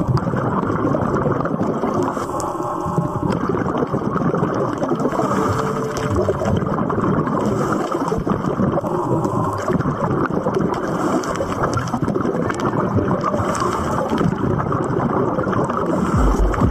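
Steady, muffled underwater rush and gurgling of water, picked up by a camera underwater; a deep rumble comes in near the end.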